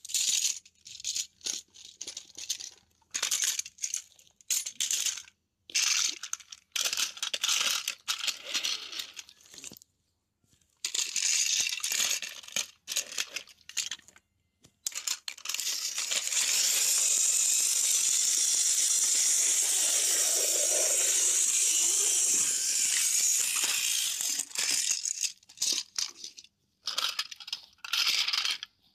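Plastic toy trains and track handled close to the microphone: intermittent scraping, rubbing and rattling with short pauses, and a steady hissing rub for about eight seconds in the middle.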